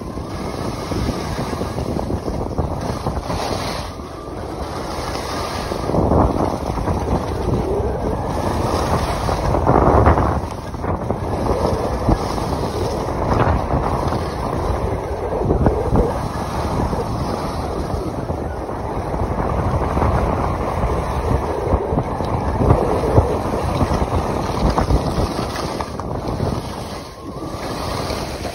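Wind buffeting a phone's microphone as it is carried down a ski slope at speed: a loud, steady rushing rumble that swells and eases, with stronger gusts about six and ten seconds in.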